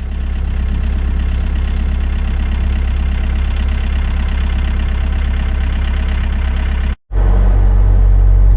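Sunward 90UF excavator's diesel engine running steadily at a constant speed. About seven seconds in the sound drops out for an instant and comes back louder and deeper.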